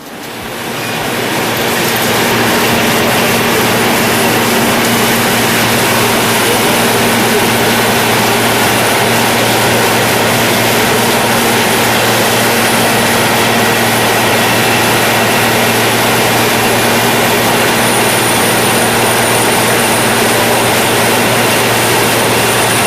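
Caterpillar PM102 cold planer running: a loud, steady heavy-machine noise with a low hum and a faint high whine, swelling up over the first couple of seconds and then holding level.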